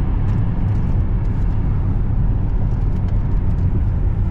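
Steady low road rumble inside a moving car's cabin: tyre and engine noise, with a few faint ticks.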